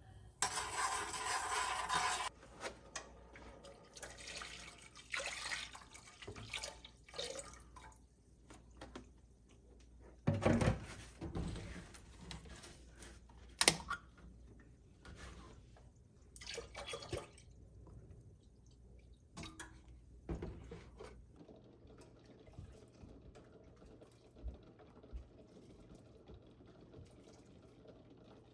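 A tap running for about two seconds, then scattered knocks, clicks and brief splashes of washing-up at a sink, with one sharp click about halfway through.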